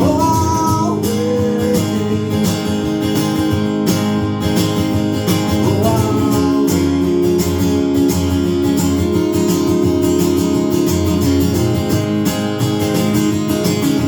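Acoustic guitar strummed steadily in a live song, with a few short sliding pitched notes over the chords near the start and again about halfway through.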